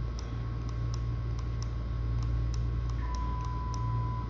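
Steady low electrical-sounding hum with faint, evenly spaced high ticks about three a second, and a thin steady tone joining in for about the last second.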